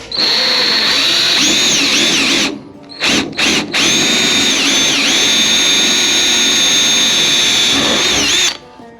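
Power drill running at speed while a small screw goes into a 1955 Chevy's quarter-glass window channel. Its high whine dips briefly in pitch as it takes load. It runs for a couple of seconds, gives three short blips, then runs steadily again and stops shortly before the end.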